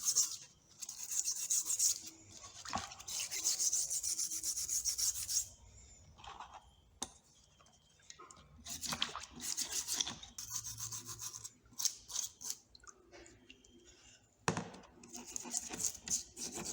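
Brush scrubbing rusty metal hand tools in rapid back-and-forth strokes, in bursts of a couple of seconds at a time, with a few short knocks and clicks in between.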